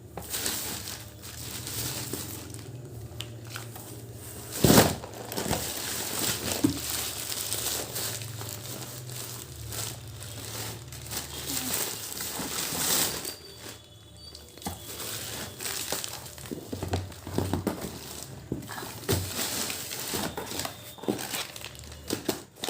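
Plastic and paper grocery packaging crinkling and rustling as it is handled and unpacked, with irregular crackles and one loud sudden sound about five seconds in.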